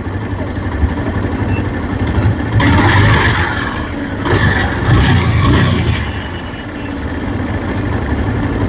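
TVS Apache RTR 150's single-cylinder four-stroke engine, freshly rebuilt, idling steadily with the throttle blipped twice near the middle. The run is a check of the engine sound after the repair.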